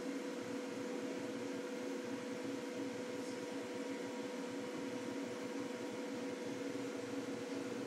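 Aquarium pump humming steadily, with an even hiss under it.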